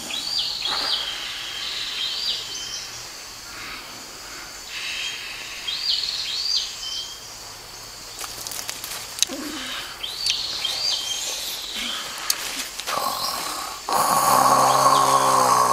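Birds calling in pairs of short up-and-down chirps over quiet outdoor background. Near the end a person starts snoring loudly, and the snore becomes the loudest sound.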